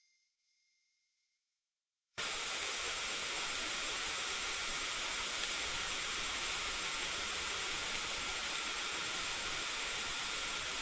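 Silence, then about two seconds in a steady hiss starts suddenly and holds at an even level, strongest in the high range, like escaping steam or white noise.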